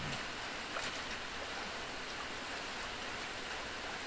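Steady rain falling on open water, an even hiss of drops pattering on the surface.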